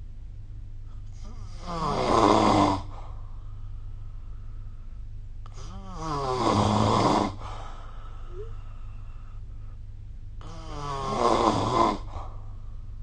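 A person snoring: three snores about four and a half seconds apart, each building up and ending abruptly. A steady low hum runs underneath.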